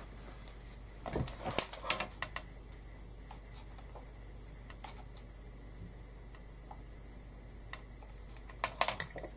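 Hands handling an organza bow and ribbon on a top hat: small taps, clicks and rustles in two short clusters, about a second in and again near the end, over a faint steady low hum.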